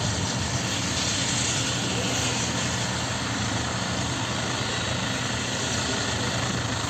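Turbine helicopter running on the ground with its main rotor turning, a steady engine and rotor noise with no change in pitch.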